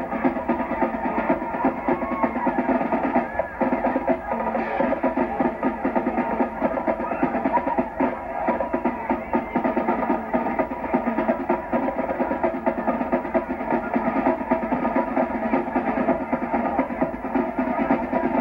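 High school marching band drumline playing a rapid, steady cadence on snare and bass drums. It sounds muffled, as on an old videotape played back off a TV.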